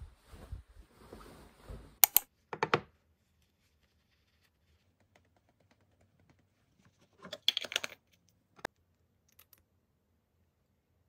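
Duvet cover fabric rustling as the bed is made, then sharp clicks and light clattering of makeup containers being handled on a desk, with a cluster of small clicks in the second half as a lip tint tube is uncapped, and one last sharp click.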